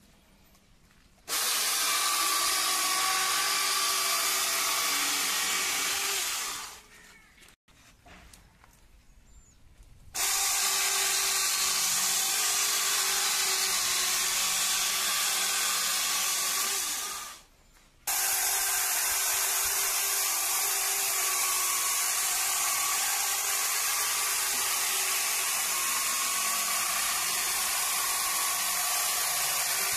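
Two-man electric chainsaw with a long Sharp bar cutting through hardwood logs: a steady high whine with the chain rasping through the wood. It runs three times, each run starting suddenly and winding down over about a second, with short quiet breaks about six and seventeen seconds in.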